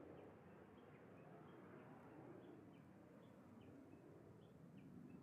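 Faint, distant rumble of a Cessna 525 CitationJet's twin turbofans as it climbs away, with short high bird chirps about three times a second.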